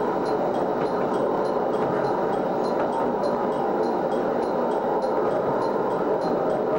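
Steady running noise of a diesel train, heard from inside the driver's cab as it rolls along the track.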